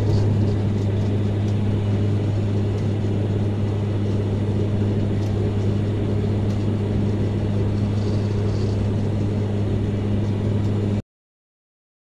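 Turboprop airliner's engine and propeller droning steadily, heard inside the passenger cabin, with a deep hum and a tone an octave above it; the propeller spinner is broken from a bird strike but the engine keeps running. The sound cuts off suddenly near the end.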